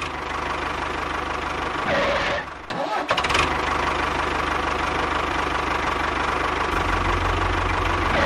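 Tractor engine running steadily with a low rhythmic chug. It drops away about two and a half seconds in and starts up again with a short clatter about three seconds in.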